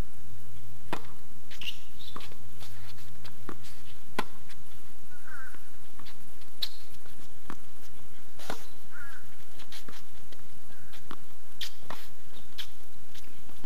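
Tennis ball struck by racket strings and bouncing on a hard court during a singles point: a serve, then a rally of sharp pops spaced about a second apart.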